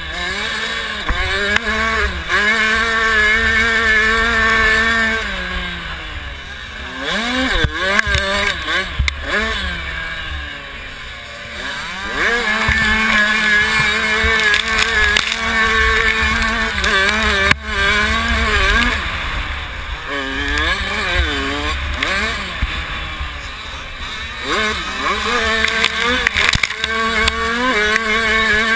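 A 65cc two-stroke motocross bike's engine, heard from the rider's helmet, revving up and down again and again as the throttle is opened and closed. There are quieter off-throttle stretches about six and eleven seconds in, and a single sharp knock a little past halfway. A low wind rumble on the microphone runs underneath.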